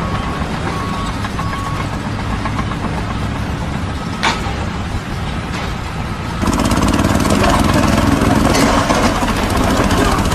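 Steady engine drone. About six seconds in it gets louder and turns into a fast rattling pulse: a small engine-driven mobile stone crusher running and crushing rubble.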